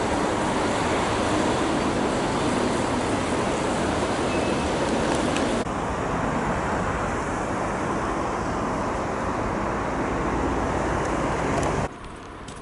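Road traffic noise, a steady rush of passing vehicles, which drops abruptly a little about six seconds in and drops much further near the end.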